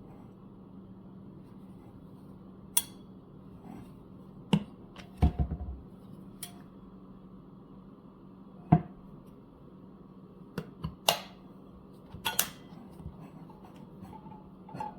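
Scattered sharp clicks and knocks of a stainless steel water bottle and its push-button flip lid being handled, about a dozen over the stretch, heard over a steady low hum.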